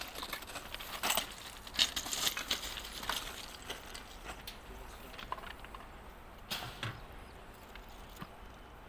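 Footsteps crunching on railway track ballast: irregular clicks and crunches, busiest in the first few seconds and thinning out after that.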